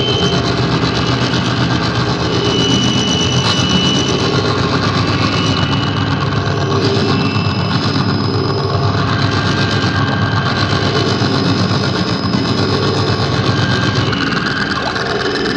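Loud, dense droning noise with a steady low rumble and several held tones that shift every few seconds, like an engine running: an experimental noise recording. The low rumble drops out near the end.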